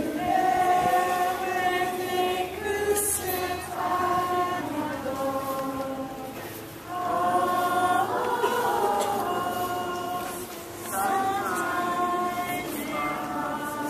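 A crowd of schoolchildren singing a hymn together, with held notes and two short breaks between phrases.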